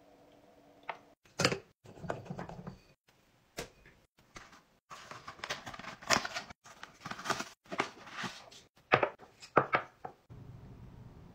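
Close-up handling sounds: sharp clicks and knocks of a plastic wipes canister and a candle jar with its lid, and, in the middle, a longer scratchy rustle of a paper candle box being opened.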